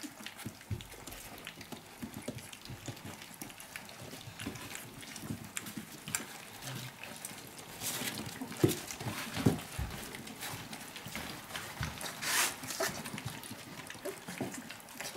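A litter of three-week-old puppies lapping and slurping their first soft food from a stainless steel saucer dish, with scattered small clicks and knocks and a few louder ones.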